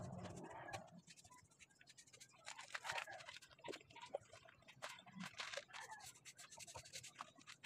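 Faint, scattered scratchy strokes of a paintbrush applying finish to wooden bench slats, after a louder steady noise stops about half a second in.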